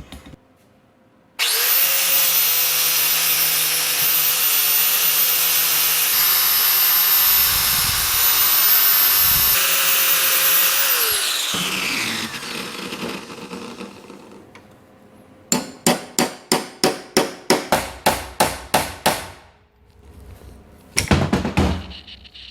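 Angle grinder running against steel for about ten seconds, grinding through the welds that hold a chain tensioner onto its shaft, then winding down with a falling whine. A few seconds later comes a quick run of hammer blows on a chisel, about four or five a second, and another short burst of strikes near the end as the tensioner is driven loose.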